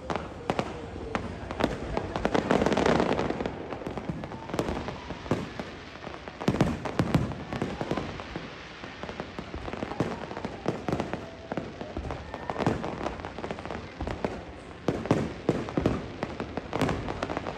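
Aerial fireworks display: a steady run of bangs and crackling from bursting shells, densest and loudest about two to three seconds in.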